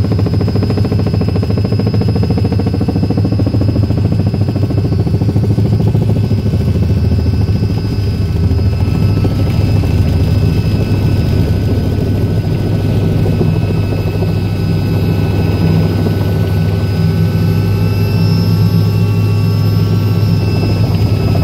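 Helicopter running steadily in flight: a loud, even low drone of the rotor and engine, with a thin, steady high whine over it.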